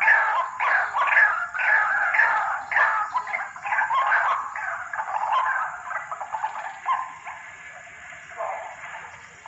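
White-breasted waterhen (ruak-ruak) calling: a run of harsh calls that each fall in pitch, about two a second, breaking into denser, softer chattering calls that fade toward the end.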